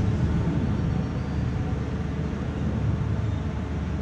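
Low, steady rumble and rustle of a crowded prayer hall as a large congregation goes down into prostration.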